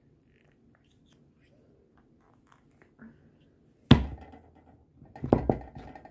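Small plastic toy parts handled: faint clicks, then a sharp plastic clack about four seconds in, followed by a few knocks on the tabletop a second or so later.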